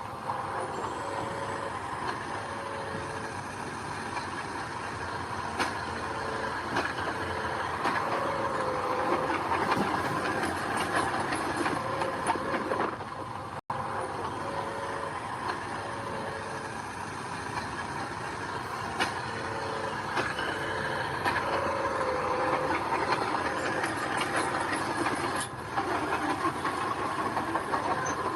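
Heavy diesel earthmoving machinery running steadily, with short tones repeating in runs over the engine noise.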